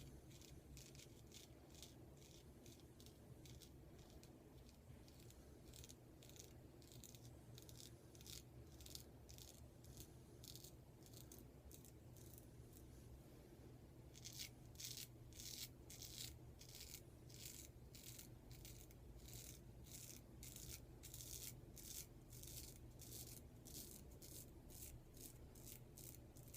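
Faint, crisp scraping strokes of a straight razor cutting through stubble on the face, about two strokes a second, getting louder about halfway through.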